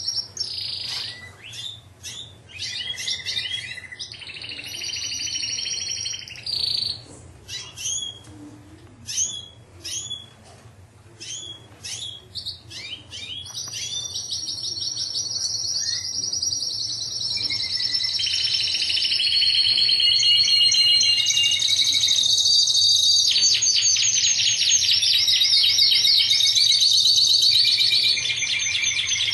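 Domestic canary singing: short chirps and quick sweeping notes at first, then, from about halfway through, long rapid rolling trills that run on one after another and grow louder.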